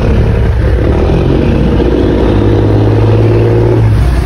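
A fishing boat's diesel engine running loud and steady while manoeuvring, with a deeper engine tone coming in about two seconds in and dropping away near the end.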